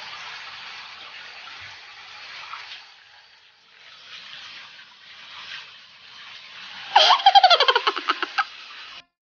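Water from a handheld shower head running and splashing in a bathtub as a cat is washed. About seven seconds in comes a loud cry in rapid pulses that falls in pitch.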